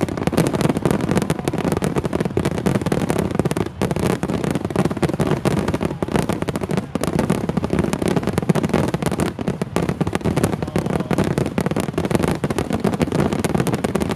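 Fireworks finale barrage: aerial shells bursting in rapid succession, the booms and crackles overlapping into a continuous, loud din with hardly a break.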